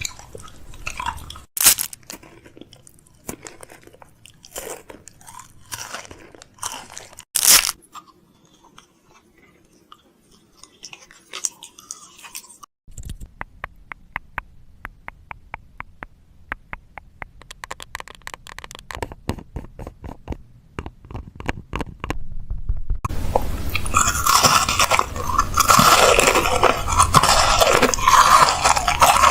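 Close crunching and clicking sounds. Scattered crunches come first, then a fast, even run of taps, and a dense, louder crackling takes over for the last few seconds.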